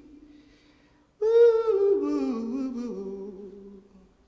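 Unaccompanied solo voice singing a slow, drawn-out phrase of the song's a cappella opening. One long held note begins about a second in, then steps down in pitch and fades away. Before it, the previous line's last note dies out into a short near-silent pause.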